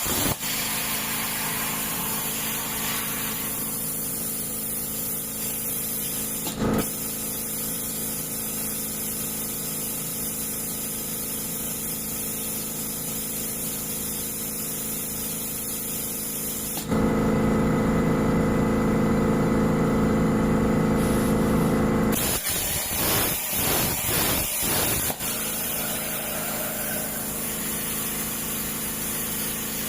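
CNC machine running with a steady hiss and hum. About seventeen seconds in it grows louder with a stronger, pitched hum for about five seconds, then settles back.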